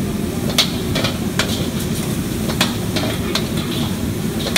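A metal ladle stirs and scrapes noodles in a wok, clanging sharply against it about every second. Under it, food sizzles and a gas wok burner roars steadily.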